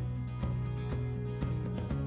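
Background music with a steady beat and sustained low tones.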